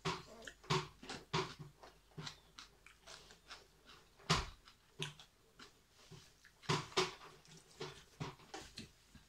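A person chewing food close to the microphone: a string of short, irregular wet smacks and clicks from the mouth, with one louder smack about four and a half seconds in.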